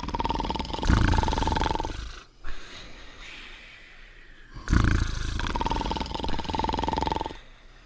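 Cartoon dog snoring: two long, rough snores about four seconds apart, each with a steady whistle-like tone running through it, and quieter breathing between them.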